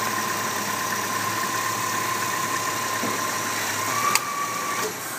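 Subaru EZ30 3.0-litre flat-six idling steadily with the headlights, wipers and AC on, then switched off near the end, with a click about four seconds in.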